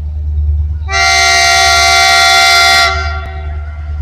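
Air horn of an EMD J-26CW/AC diesel locomotive sounding one steady multi-tone blast of about two seconds, beginning about a second in, over a steady low rumble.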